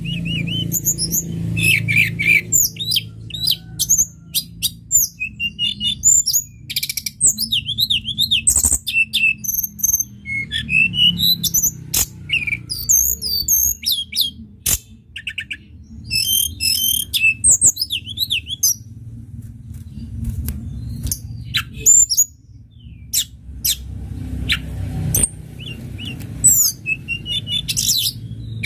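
Tledekan gunung songbird singing a rapid, varied stream of high chirps, trills and whistling phrases with sharp clicks, pausing briefly a little past the middle. A steady low hum runs underneath.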